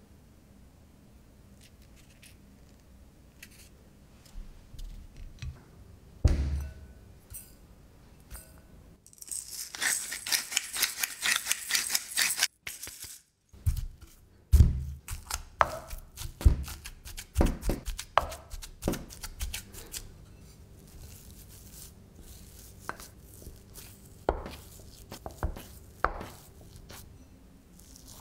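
Kitchen prep sounds. First come faint clicks of hands handling wooden skewers and cheese, then a few seconds of rapid dry rattling. Then a wooden potato masher pounds boiled potatoes in a glass bowl, a string of dull thuds, and after that come softer sounds of hands pressing the mashed potato.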